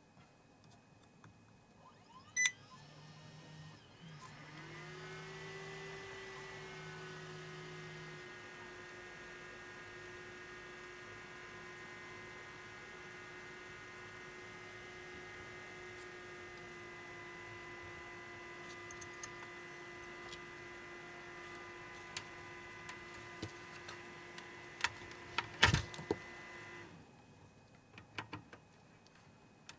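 BenQ DLP projector switched on with a click, its replacement colour wheel motor whining up to speed and running steadily for about twenty seconds. Near the end there is a loud click and the whine stops abruptly. The repairer says the wheel keeps spinning and then stopping even with the new motor, and he suspects the motor's sensor.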